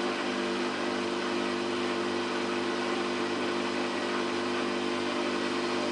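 Samsung WF8804RPA front-loading washing machine's motor humming at a steady pitch as the drum turns at a constant speed, with the load being balanced ahead of the intermittent spin.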